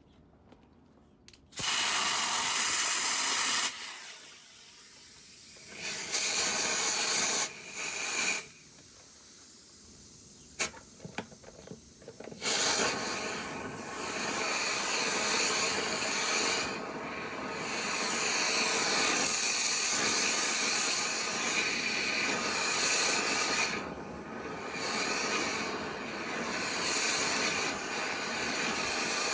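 Dryer vent being cleaned with a rush of air: it comes in short bursts that start and stop sharply, then runs on steadily with small dips.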